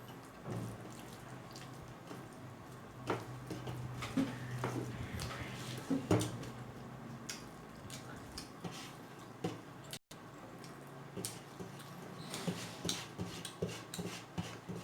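Close eating sounds of finger-millet dhido and soup: wet squishing, smacking and chewing, with scattered light clicks of a dish and spoon.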